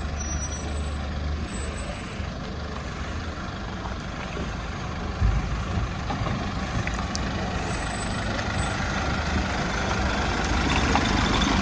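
Sprinter motorhome driving: steady engine and road noise, slowly growing louder, with a thump about five seconds in.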